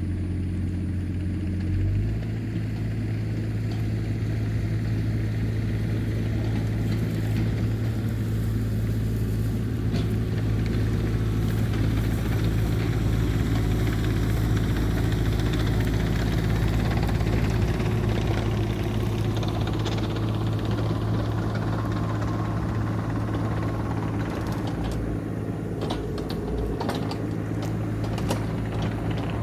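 Tractor engine running steadily while the tractor pushes a root rake through topsoil and roots. Its pitch shifts about two seconds in, and a few sharp clicks come near the end.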